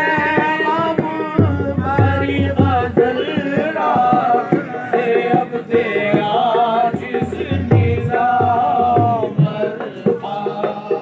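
Qawwali: voices singing a devotional kalam with hand-drum percussion keeping a steady beat.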